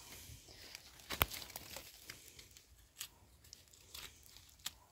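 Faint crackling of dry leaves and twigs, with one sharp snap about a second in and a few lighter snaps later.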